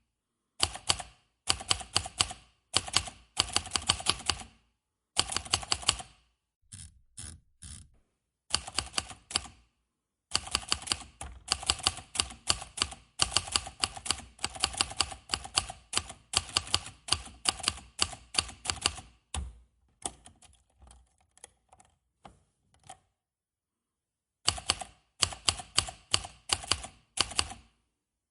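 Manual typewriter being typed on: quick runs of sharp key strikes broken by short pauses, with a stretch of fainter, sparser clicks about two-thirds of the way through.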